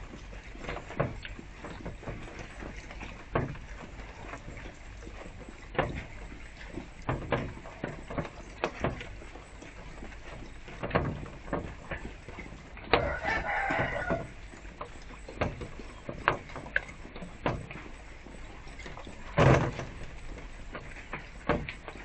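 A rooster crows once, about a second and a half long, partway through, over the steady splashing of a small garden fountain. Scattered sharp taps run throughout, with one louder knock near the end.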